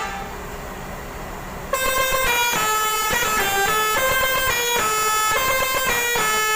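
Six-trumpet Indian-made Basuri telolet bus horn playing a quick tune of short, changing notes. It cuts in suddenly, loud, almost two seconds in, after a short pause.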